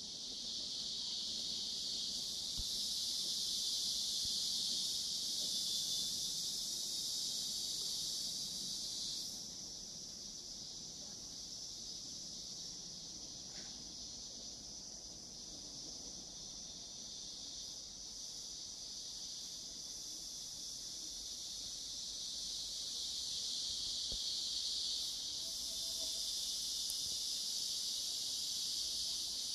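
Dense chorus of rainforest insects making a steady high-pitched shrill drone. It drops somewhat about nine seconds in and swells back up over the last third.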